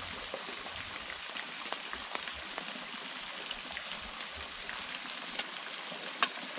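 Steady hiss of running water from a jungle stream and waterfall, with scattered small ticks and a sharper click about six seconds in.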